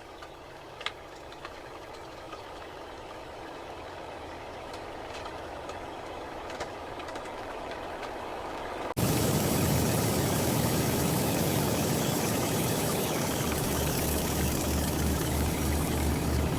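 A machine running with a steady mechanical noise that slowly grows louder, then jumps abruptly much louder about nine seconds in, with a low pulsing hum near the end.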